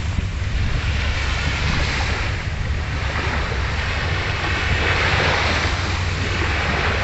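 Steady wind noise on the microphone over small waves washing onto a sandy shore; the hiss of the wash swells twice.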